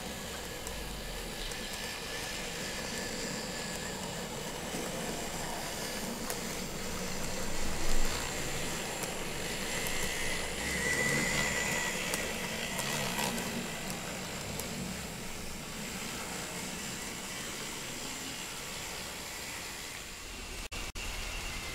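N-scale model train (Greenmax Meitetsu 1700 series coupled to a 3100 series) running around the track, a steady whirring of the motor and wheels on the rails, with a faint whine around ten seconds in as it passes close. A short louder knock about 8 seconds in.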